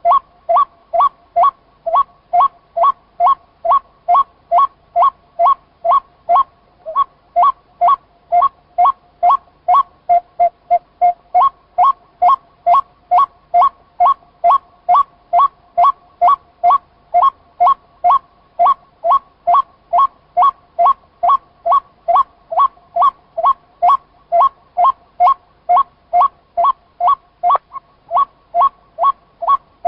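White-breasted waterhen (chim cuốc) calling a long, monotonous run of loud, repeated 'cuốc' notes, about two a second, each note two-pitched and evenly spaced.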